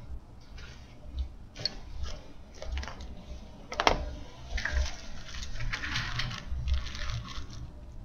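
Soft rubbing and tapping of hands on a textbook, a single sharp knock about four seconds in, then a thin plastic sandwich baggie crinkling and rustling as it is handled.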